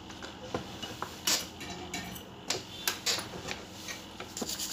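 An irregular string of small clicks, taps and scrapes from a car amplifier's circuit board and a soldering iron being handled on a workbench.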